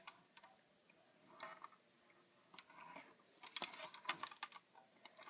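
Faint, scattered clicks and rattles of plastic Lego bricks being handled and pressed together, a few about a second and a half in and more near the end.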